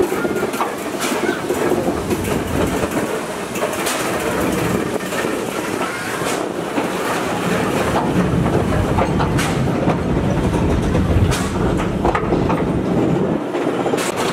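A railway carriage rolling along the track: a steady rumble, with sharp clacks scattered at uneven intervals as the wheels pass over rail joints.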